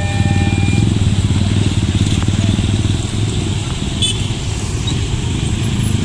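A crowd of small motorcycles and scooters running and moving off together, a dense, steady engine drone made of many overlapping exhausts.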